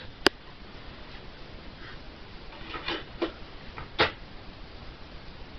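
A sharp click just after the start, then a few softer clicks and a knock about three to four seconds in, from a hand working the CD lid and buttons of a portable boombox.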